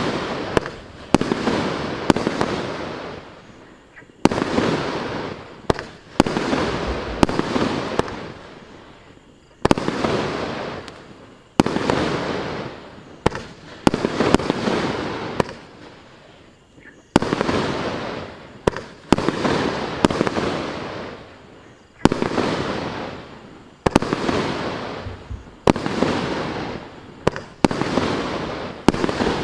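Maxsem MC099 'Speed Fireworks' 25-shot, 1.2-inch (30 mm) firework cake firing in sequence: a sharp report every one to two seconds, each followed by a fading hiss that dies away before the next shot.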